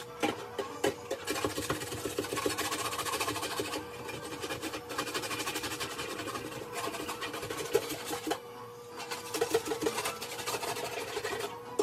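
Dishes being hand-washed in a kitchen sink: running tap water with dishes and utensils clinking and clattering, dipping briefly twice.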